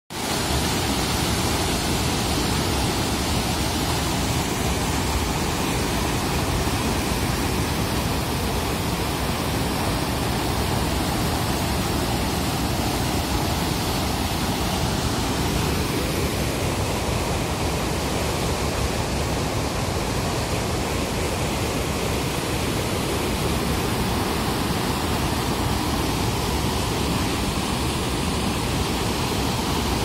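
Overflow water from a lake pouring through the openings of a concrete weir and churning in the pool below: a steady, loud rushing.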